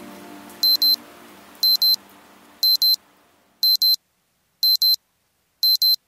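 Digital alarm clock beeping in pairs of short high beeps, one pair a second. Background music fades out under the beeps over the first few seconds.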